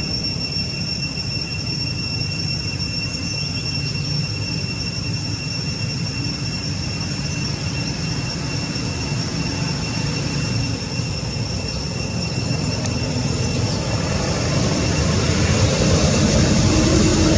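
Outdoor ambience: a steady high two-tone whine over a low rumbling noise, which grows louder near the end.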